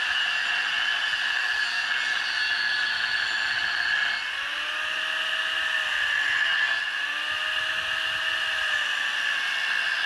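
Angle grinder with a cut-off disc running steadily with a high whine as it cuts through a steel tube.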